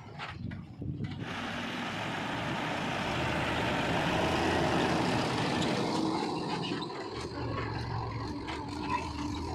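Diesel engine of a backhoe loader working under load, with scraping knocks at first, then a loud rushing noise that swells and eases off about six seconds in, leaving a steady engine drone.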